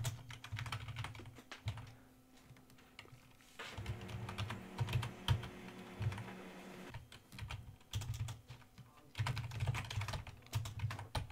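Typing on a computer keyboard: an irregular run of key clicks, with a low steady hum joining for a few seconds in the middle.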